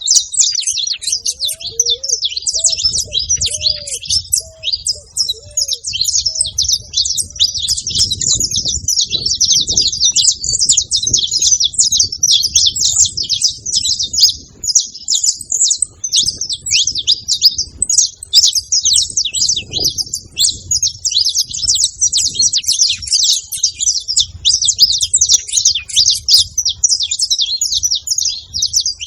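Several saffron finches singing and chirping together, a dense, unbroken chatter of rapid high notes.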